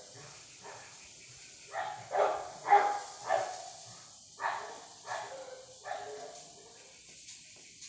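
A dog barking, a run of short barks from about two seconds in until about six seconds in.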